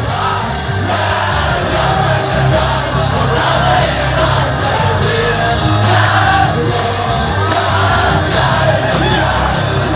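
Live band music with a steady bass line and voices singing over it.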